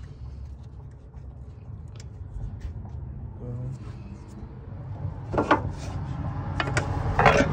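Clicks and knocks of engine-bay parts being handled over a steady low rumble, with louder knocks about five and a half and seven seconds in.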